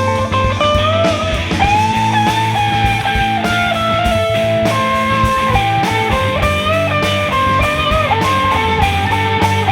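Rock band instrumental break: an electric lead guitar plays a solo of bent, gliding notes over bass guitar and drums.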